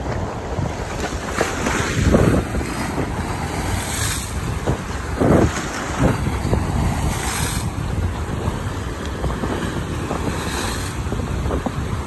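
Waves crashing against rocks and a concrete seawall, the water rushing and splashing over the stones in repeated surges. Heavy wind buffets the microphone as a low rumble throughout.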